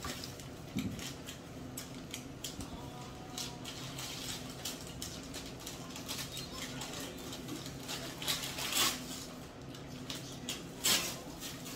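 Eating sounds at a table: scattered clicks, rustling and short tearing noises of food being peeled by hand and eaten, with two louder rustles about eight and eleven seconds in, over a steady low hum.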